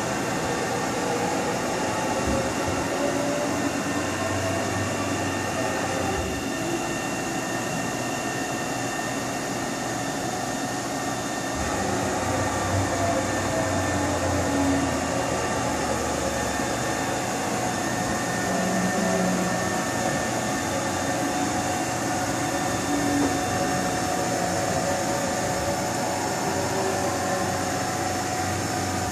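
1995 Haas VF6 vertical machining centre running through a dry cycle: a steady machine hum with the axis drives moving the table back and forth, the low drone rising and dropping as each move starts and stops.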